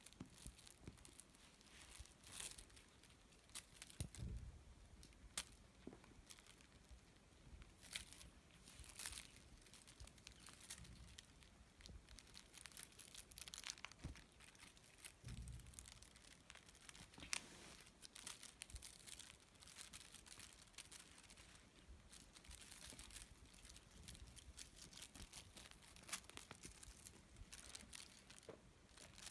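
Faint, irregular rustling, scratching and crinkling of kittens playing on a fleece blanket with a wand toy, with a few soft thumps.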